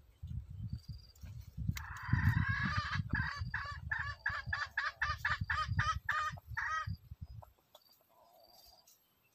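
Red junglefowl calling: a drawn-out harsh call, then a run of short clucking cackles at about three a second that stops near the end, over a low rumble on the microphone.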